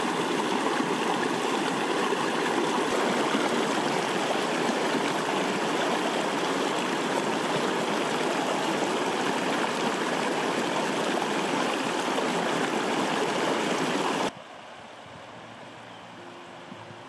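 Black River's shallow water rushing steadily over boulders and small rock cascades, a constant full rush of a mountain stream. It cuts off suddenly about three-quarters of the way through, leaving a much quieter stretch.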